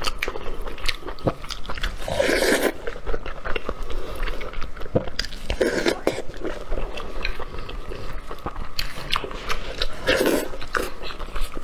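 Close-miked eating of braised sheep's head: wet chewing and lip smacking with many small clicks, and three louder, longer mouth noises about two, six and ten seconds in.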